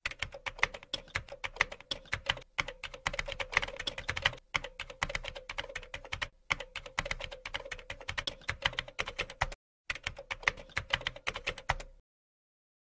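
Rapid, irregular computer-keyboard keystroke clicks of a typing sound effect, with a few brief pauses, over a faint steady hum; the typing stops about a second before the end.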